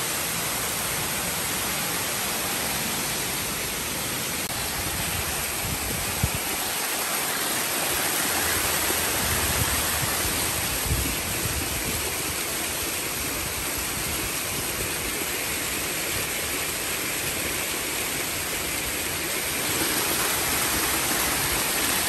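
Waterfall water rushing steadily, an unbroken hiss of falling water, with a couple of brief low thumps about six and eleven seconds in.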